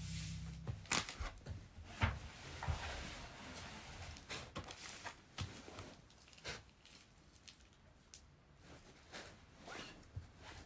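Shoji paper and tape being handled and torn: a run of ripping and crinkling in the first few seconds, then scattered short rips and rustles.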